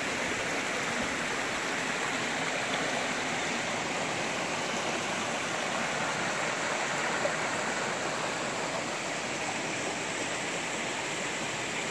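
Clear freshwater creek running over rocks and boulders in small cascades, a steady sound of flowing water.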